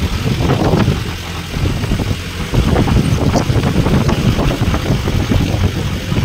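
Vehicle engine running on the move, with wind and road noise rushing past an open side.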